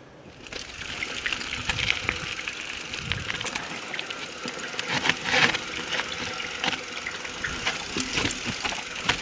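Mountain bike rolling fast down a dirt singletrack: steady tyre noise over dirt and roots with frequent rattles and knocks from the bike, starting about half a second in, with one louder knock about halfway through.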